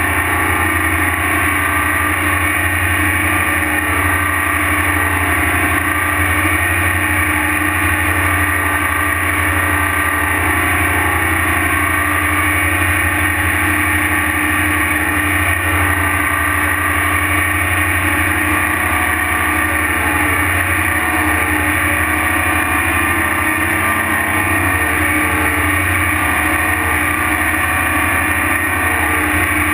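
Terex TS-14B twin-engine motor scraper's diesel engine running steadily and loudly under way, heard close up on the machine with a deep, even hum.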